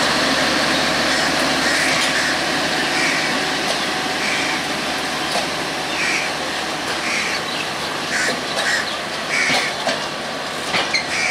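Intercity passenger train coaches moving slowly past the platform, giving a steady rumble and rolling noise, with crows cawing several times over it, more often toward the end.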